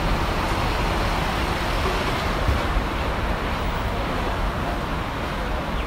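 Steady outdoor background noise: an even rushing hiss over a low rumble, with no clear separate events.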